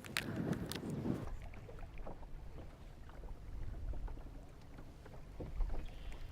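Wind rumbling on the microphone out on a small boat, with faint scattered knocks and a short burst of rustling handling noise at the start.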